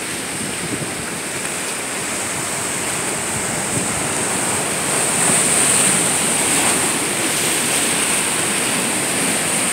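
Ocean surf washing and foaming through a narrow channel between rocks: a steady rushing of white water that swells a little about halfway through.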